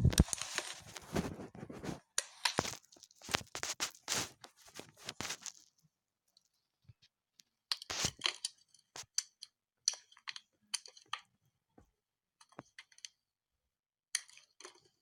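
A blade carving into a bar of soap: crunchy scraping strokes packed close together for the first six seconds, then scattered short crisp scrapes and clicks.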